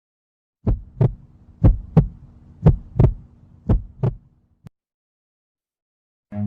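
Heartbeat sound effect: four double thumps (lub-dub) about once a second over a faint low hum, stopping after about four seconds.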